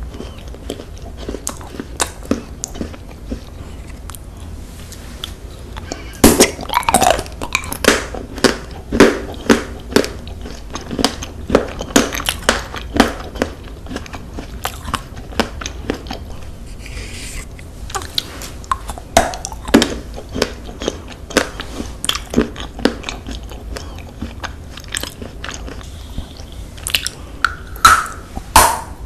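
Close-miked biting and crunchy chewing of colored spoon-shaped snacks. Chewing is sparse at first, then a dense run of crunches begins about six seconds in, and a fresh bite comes near the end.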